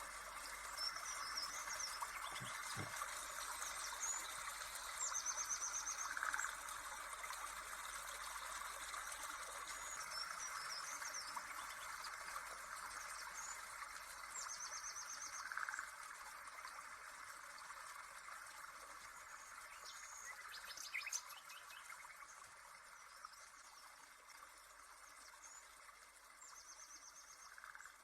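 Birds chirping, with short trilled calls recurring every ten seconds or so, over a steady hiss.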